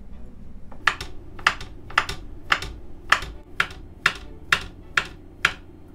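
Chef's knife slicing a peeled banana into rounds on a wooden cutting board: the blade knocks the board in an even rhythm, about two chops a second, ten in all.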